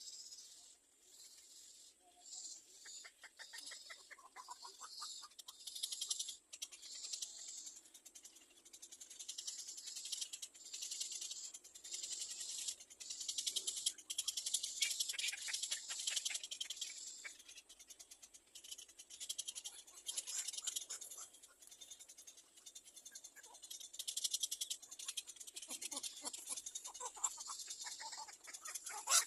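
Nestling birds cheeping, a high-pitched rapid chatter that swells and fades in waves, typical of chicks begging for food.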